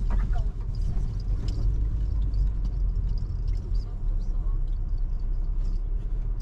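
A car driving on the road, with a steady low rumble of engine and tyres.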